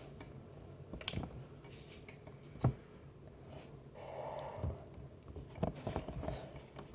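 Quiet, scattered soft taps and squishes of a hand working oobleck, a thick cornstarch-and-water mix, in a plastic bin, with a small cluster of taps near the end.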